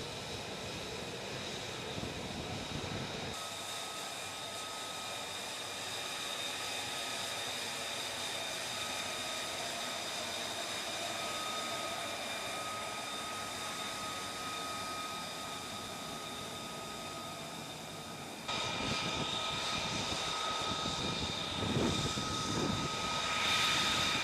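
F-35 jet engine running with a steady high-pitched whine over a rushing noise. The sound changes abruptly twice, a few seconds in and again about three quarters through, and grows a little louder near the end.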